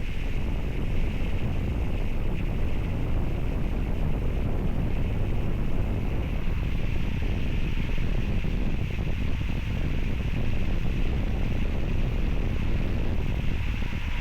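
Steady wind noise on the microphone of a bike-mounted camera while riding a bicycle, with a continuous low rumble.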